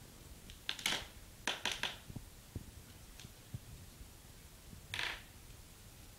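Couch upholstery being pulled and torn off its wooden frame: short crackling, tearing snaps, one cluster about a second in, another around one and a half to two seconds, and a single one about five seconds in.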